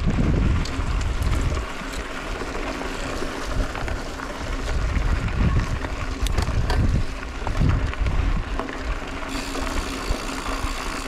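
Wind buffeting the microphone while riding a bicycle over a gravel dirt track, with scattered clicks and rattles from the tyres and the bike.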